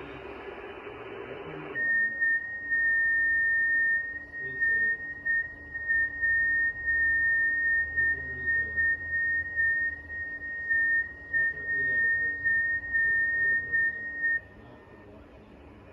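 FT8 digital-mode signal on a 6 meter ham radio: one steady, slightly warbling high tone that starts about two seconds in and stops abruptly after about twelve and a half seconds, the length of one FT8 transmission. Before it, receiver static hiss.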